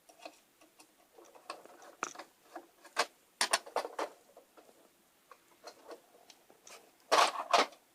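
A screwdriver backs small screws out of the roof of a plastic G scale model train car: scattered light clicks, ticks and scrapes, a few sharper ones around three to four seconds in. A louder clatter comes near the end.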